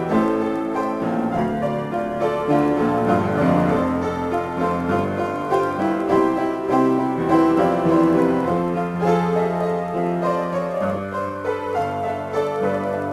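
Solo piano improvisation: sustained chords and melody notes played continuously, with a held bass note.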